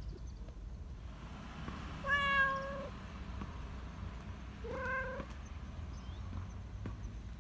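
Black Persian cat meowing twice, a longer, level meow about two seconds in and a shorter one that rises at its start about five seconds in: attention-seeking meows of a cat wanting to be petted.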